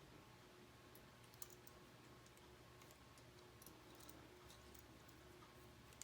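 Near silence with faint, scattered clicks of plastic K'Nex rods and connectors being handled and twisted into place, over a low steady hum.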